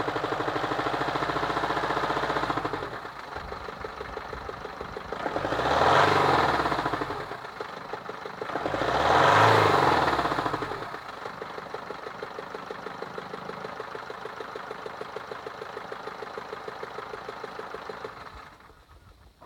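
Car engine idling with a regular knock, revved up and back down twice, then switched off near the end.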